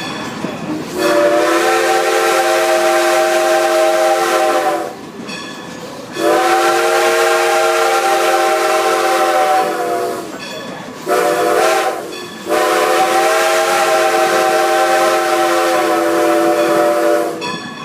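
Steam locomotive's chime whistle sounding the grade-crossing signal: two long blasts, a short one, then a final long one. It is the standard warning for approaching a road crossing.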